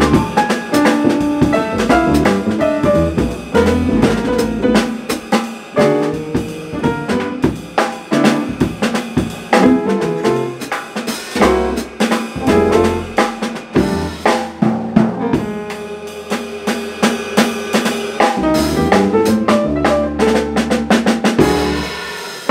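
A live jazz piano trio plays together: piano, double bass and drum kit, with the drums busy on snare and bass drum.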